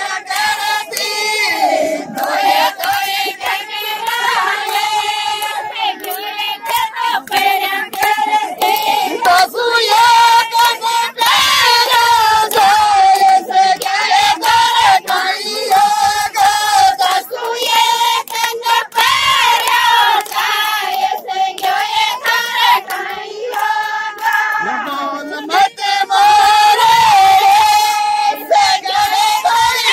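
Women's voices singing a folk song together in a high register, unaccompanied, with scattered claps.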